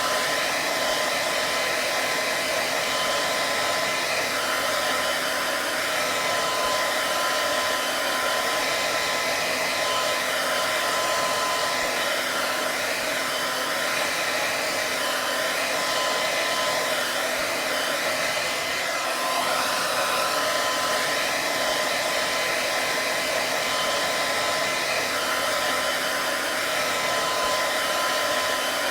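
Hair dryer running steadily: an even rush of air with a thin, steady whine on top.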